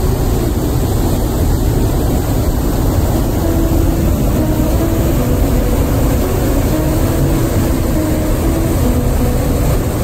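Waterfall and rapids rushing over rock: a loud, steady roar of white water, with a soft background-music melody faintly over it.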